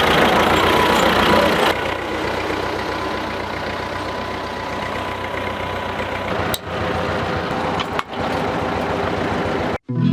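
Tractor engine running steadily with a low rhythmic chug, heard in several short clips cut together, with sudden changes in level at each cut.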